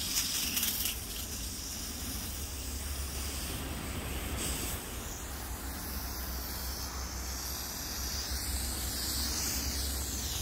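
Strong jet of water from a garden hose, pumped from a water barrel by a battery-powered Bosch GardenPump 18, spraying onto insect netting and soil: a steady hiss.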